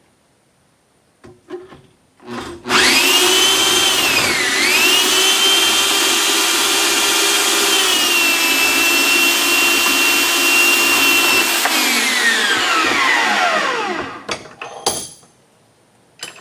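Portable bandsaw cutting off the end of a piece held in a bench vise: the motor starts with a rising whine, dips in pitch under load about two seconds later and recovers, then runs steady. Near the end it is switched off and the whine falls away, followed by a few clanks as the work is handled.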